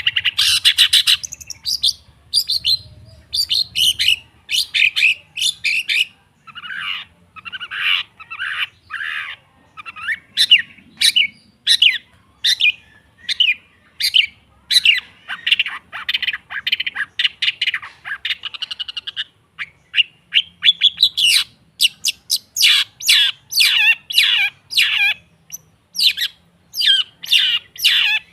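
Long-tailed shrike (cendet) singing: a continuous series of short, rapid notes and fast rattling trills, in phrases broken by brief pauses.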